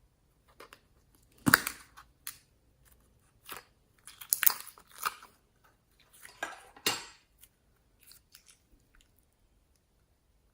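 Slime being squeezed and poked by hand: a string of separate wet crackles and pops, the loudest about one and a half and seven seconds in, dwindling to small ticks near the end.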